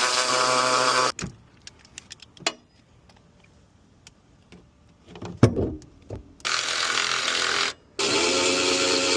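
Power tool, such as a cordless impact wrench or electric ratchet, running in bursts on the car's fasteners: it runs and stops about a second in, then comes a stretch of light clicks of tools and parts with one sharp clunk, and the tool runs again twice near the end.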